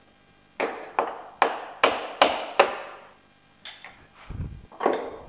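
A worn wooden replaceable plug being knocked loose from its pocket in a drill press table: six sharp knocks, about two or three a second, each ringing briefly. Softer rubbing and low thumps follow near the end as the freed piece is handled.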